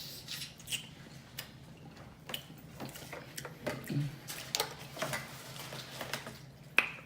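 Close-miked mukbang eating sounds: wet lip smacking and chewing on seafood in butter sauce, with irregular small clicks and taps and one sharper click near the end.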